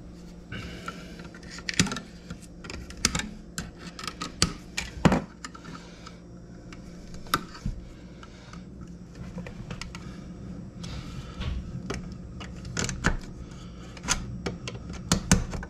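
Irregular sharp plastic and metal clicks and taps as a wall receptacle and its wires are handled and pushed into a backsplash electrical box and the cover plate is pressed on, over a steady low hum.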